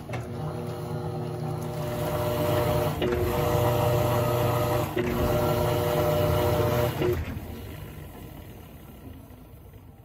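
Electrolux LAC17 top-load washing machine agitating on its turbo setting: the motor hums with steady tones over churning water, and the hum breaks and changes pitch about every two seconds as the wash action reverses. About seven seconds in the motor stops and the sound dies away.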